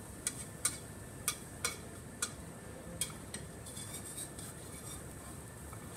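Metal palette knife clicking and scraping against a frying pan as it is worked under pancakes to flip them: a quick string of sharp clicks over the first three and a half seconds, then softer scraping.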